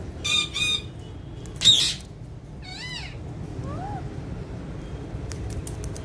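Alexandrine parakeets calling: two short squawks, then a loud harsh screech just under two seconds in, followed by a wavering call and a short soft note. A few light clicks come near the end.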